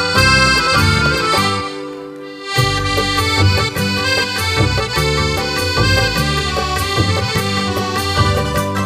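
Accordion playing a melody over a rhythmic bass accompaniment; the bass and overall level drop away briefly about two seconds in, then the playing picks up again.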